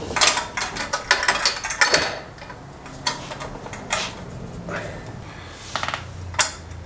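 Metal knocks, scrapes and clicks of hands and tools working on an aircraft's Vetterman exhaust pipes as they are fitted for good. The clatter is densest in the first couple of seconds, and there is a quick run of rapid, evenly spaced clicks near the end.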